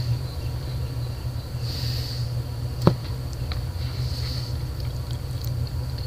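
A steady low hum with a few light clicks of a metal fork against a plastic frozen-dinner tray. One sharper click comes about three seconds in.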